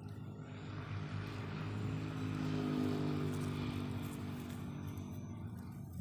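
An engine passing by: its hum swells over the first couple of seconds, is loudest about three seconds in, and fades toward the end.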